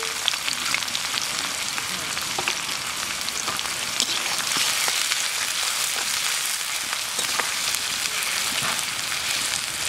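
Sliced onions sizzling steadily in hot mustard oil in a metal karahi, with scattered crackles as they fry. Near the end they are stirred with a metal spatula.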